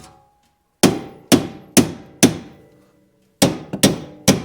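Hammer blows on metal, striking a stuck part to drive it loose: four evenly spaced strikes about half a second apart, a pause of about a second, then three more, each ringing briefly.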